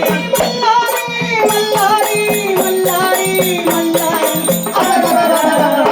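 Marathi devotional folk song to Khandoba (Malhari): an elderly woman's voice holds a long sung note over a steady, rhythmic rattling percussion accompaniment.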